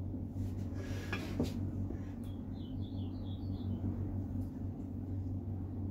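Steady low hum with a few light knocks of wooden boards being shifted on a workbench, and a bird giving a quick run of short high chirps about halfway through.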